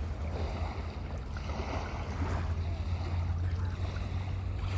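Ocean waves washing in steadily, with a constant low rumble underneath.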